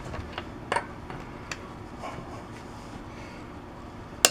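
Torque wrench working on bolts: a few faint ticks, then one loud, sharp click near the end.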